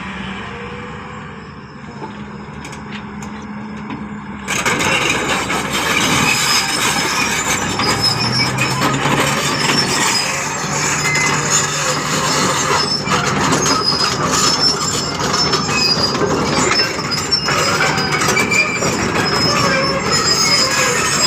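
A Komatsu 300 excavator's diesel engine running steadily, then about four and a half seconds in its hydraulic breaker starts hammering, a loud rapid metallic clatter with high ringing tones that continues.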